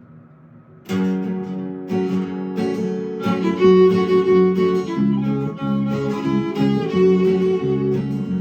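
Instrumental song intro on acoustic guitar and fiddle, strummed chords with a bowed melody, starting about a second in after a brief quiet.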